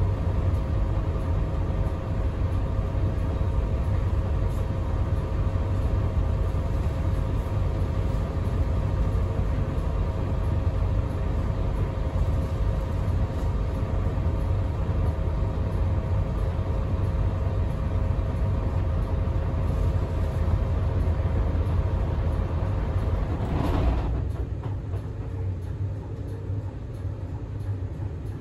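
Inside a Scania K320UB hybrid bus under way: a steady low drivetrain rumble with a steady whine above it. About 24 seconds in there is a short hiss, then the whine stops and the rumble drops quieter as the bus pulls up at a stop.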